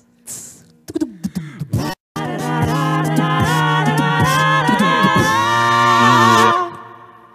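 A cappella vocal group singing live on microphones: a few short breathy mouth sounds and vocal fragments, then from about two seconds in several voices hold a harmonised chord over a sung bass line, dying away near the end.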